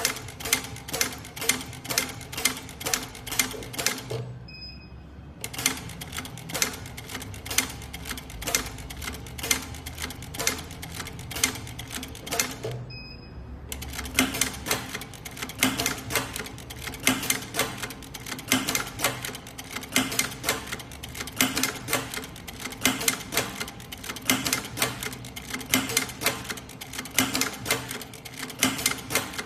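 TOPEAGLE TPB-550-1780 post-bed double-needle industrial sewing machine running through a thick strap to sew an ornamental cross stitch. It makes an even mechanical clatter of about four stitches a second, and stops briefly twice: about four seconds in and again about thirteen seconds in.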